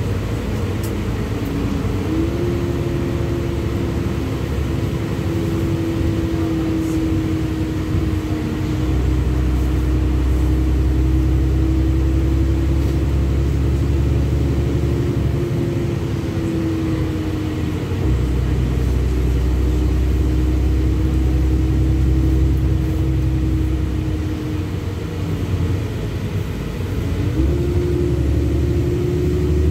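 Interior sound of a LiAZ-6213.65 articulated city bus under way: steady engine and road rumble with a drivetrain whine that rises in pitch about two seconds in and again near the end as the bus gathers speed.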